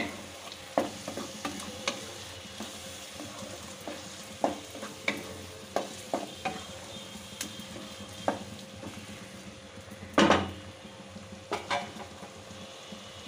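Tomato, onion and ginger-garlic masala sizzling in a kadai while a spatula stirs and scrapes it during frying down (bhuna), with irregular clicks of the spatula against the pan. One louder knock comes about ten seconds in.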